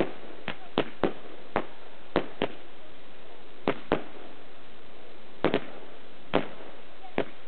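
Aerial fireworks bursting overhead: about a dozen sharp bangs at uneven intervals, some in quick pairs, over a steady background hiss.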